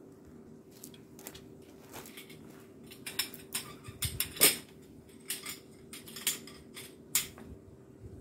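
Metal tent poles clinking and knocking as they are handled and set down on gravel: a run of sharp clicks and clacks starting about three seconds in, the loudest about four and a half seconds in.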